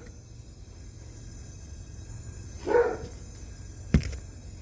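A dog barks once, a short single bark, about three seconds in. A sharp knock follows about a second later.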